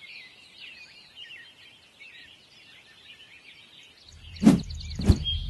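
Birds chirping and twittering in a busy chorus. About four seconds in, a low steady hum begins and two heavy thuds hit about half a second apart as music starts.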